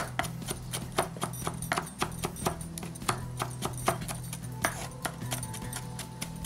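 Kitchen knife finely chopping green chillies on a wooden cutting board: sharp, unevenly spaced knocks of the blade on the board, about two to three a second, over background music with a steady low hum.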